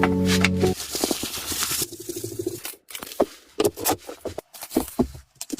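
Background music that cuts off about a second in, followed by irregular light clicks, taps and scrapes.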